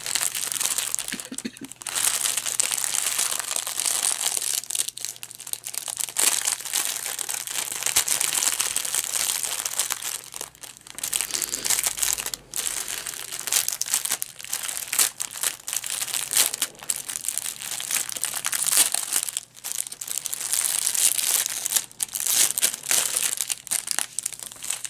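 Clear plastic wrap crinkling and rustling as hands unwrap a shrink-wrapped bundle of diamond painting drill bags, near-continuous with a few brief pauses.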